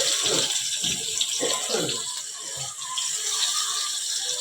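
Chopped onion and garlic sizzling steadily in hot cooking oil in a wok.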